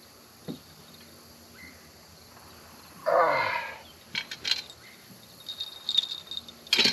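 Light clicks and rattles of a small flathead catfish being handled and unhooked in a boat, with one brief louder sound about three seconds in.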